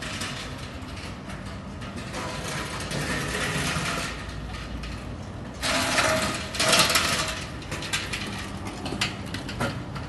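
Metal platform trolley rattling and clattering on its wheels as it is pushed over paving stones. The clatter grows louder as the trolley comes close and is loudest as it passes, about six to seven seconds in.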